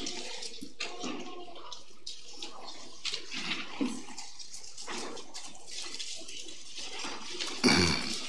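Steady hiss with faint rustling, as Bible pages are turned at a lectern. A short voice sound comes near the end.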